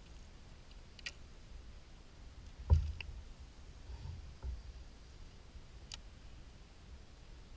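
Kayak hull taking a few knocks and clicks as the paddler shifts and handles gear, the loudest a thump a little before the middle, with smaller ones after it. A low steady rumble of wind and water runs underneath.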